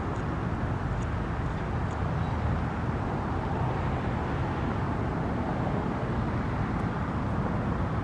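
Steady low outdoor rumble, even throughout, with no distinct events standing out.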